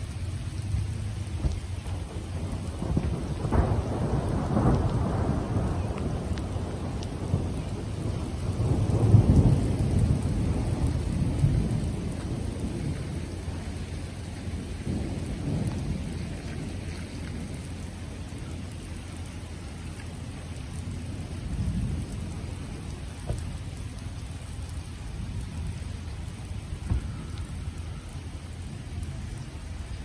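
Thunder rumbling from a storm overhead, swelling a few seconds in, loudest about a third of the way through, then rolling away, with fainter rumbles later.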